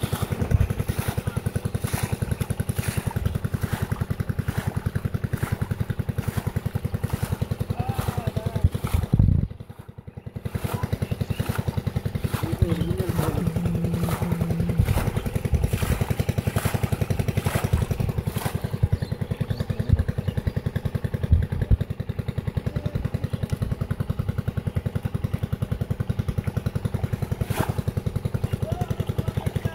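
A small engine running steadily with a fast, even beat. It drops away briefly about ten seconds in, then carries on.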